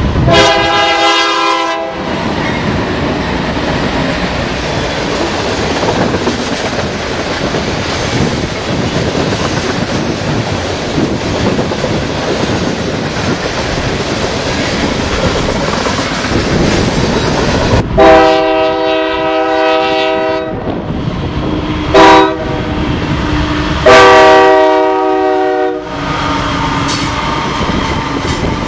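A train rolling past with a steady rumble and clatter of wheels on rail, and a locomotive air horn sounding its chord: one blast at the start, then later a long blast, a brief toot and another long blast.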